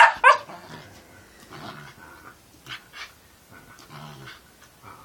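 Husky puppy vocalising in play: two sharp yips right at the start, then quieter, intermittent low growling grumbles and short huffs.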